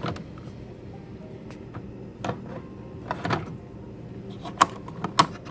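Handling of a Keurig K425 coffee maker and its pod: a few scattered clicks and knocks over a low steady hum.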